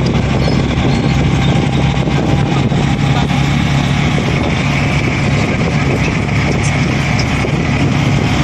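Auto-rickshaw engine running steadily as the three-wheeler drives along the road, a constant low hum mixed with wind and road noise.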